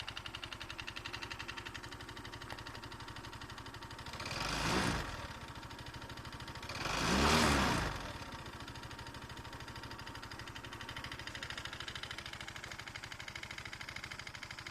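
Yamaha Tricity 125 scooter's single-cylinder engine idling with a fast, even pulsing, revved briefly twice, about four seconds in and again about seven seconds in, the second rev a little longer and louder. The scooter is put up as making an abnormal noise.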